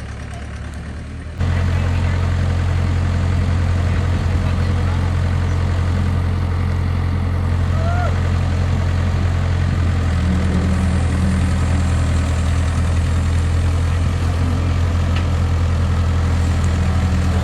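Mini excavator's diesel engine running steadily with a deep, even hum. It gets suddenly louder about a second and a half in, then holds steady.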